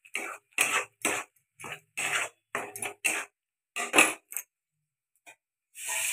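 Flat metal spatula scraping and stirring frying masala in a kadai, in quick strokes about two a second. The strokes stop about four and a half seconds in, and a longer rasp follows near the end.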